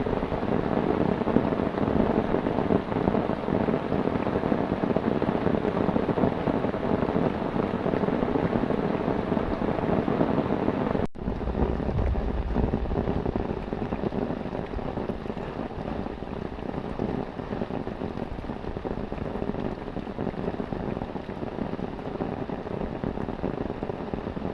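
Heavy rain falling steadily in a storm. About halfway through it breaks off abruptly and carries on a little quieter, with a brief low rumble just after the break.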